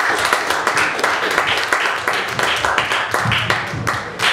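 A small audience applauding, a dense patter of hand claps.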